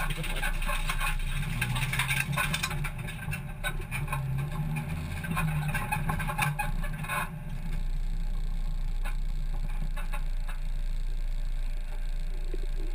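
A hatchback race car's engine running at low revs as the car rolls slowly, heard from inside its stripped cabin. For about the first seven seconds the engine note wavers, with many clicks and rattles over it; after that it settles into a steadier drone.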